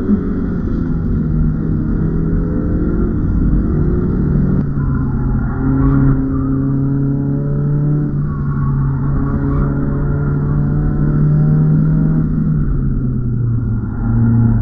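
BMW E36 318is four-cylinder engine running hard on track, heard from inside the cabin. Its pitch climbs and drops twice, about five and twelve seconds in, then rises again near the end.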